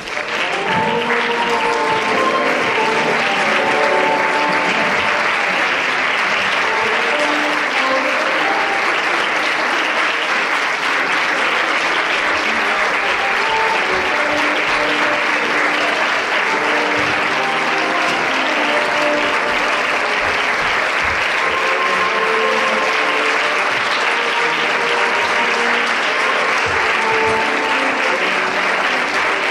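Audience applauding steadily and continuously, with music playing underneath.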